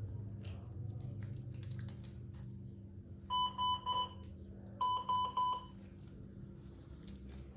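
Electronic beeping from NICU bedside medical equipment: two quick runs of short, high, identical beeps, the second run starting about a second after the first ends. A steady low hum runs underneath.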